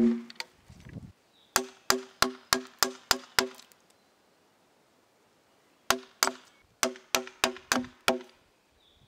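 Mallet tapping a steel gouge as it carves the end grain of a timber post. The knocks come in two quick runs of about eight, roughly four a second, with a pause of about two seconds between them. Each knock has a short pitched ring.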